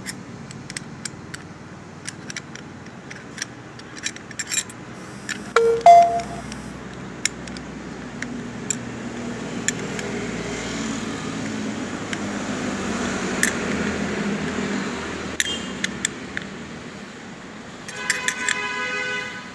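Flat steel spanner clicking and clinking on the oil filler plug of an electric demolition hammer as the plug is tightened back down after an oil fill: scattered light metal ticks, with one louder ringing clink about six seconds in. A steady noise swells in the middle and fades, and a brief sound with several steady pitches comes near the end.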